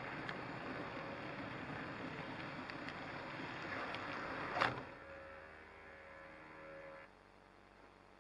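HO scale model train running on its track, a steady rumble of wheels on the rails and motor. A sharp click comes a little over halfway through, then a quieter motor hum that cuts off suddenly about seven seconds in as the train comes to a stop.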